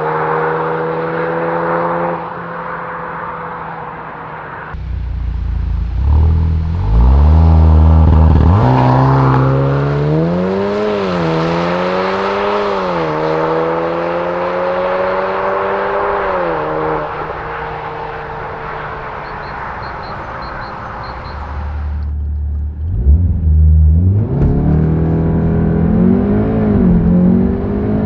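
Golf R's turbocharged four-cylinder engine through an aftermarket OPF-back sports exhaust, accelerating hard several times. Its pitch climbs and drops back in repeated runs, between stretches of steady running.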